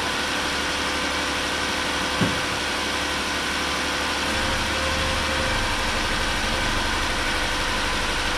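2012 Jeep Wrangler's 3.6-litre Pentastar V6 idling steadily, warming up after its first start following an engine oil cooler replacement. One brief click about two seconds in.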